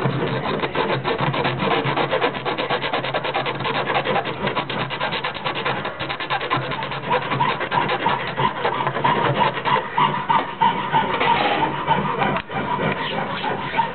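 A small white ring-shaped piece scraped back and forth against a rough, gritty abrasive block, sanding it with fast, even rasping strokes.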